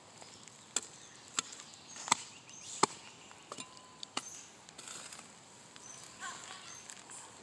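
A hoe chopping into dry soil in a corn patch: six sharp knocks, evenly spaced about two-thirds of a second apart, that stop about four seconds in. This is the hoeing and hilling of earth around the young corn plants.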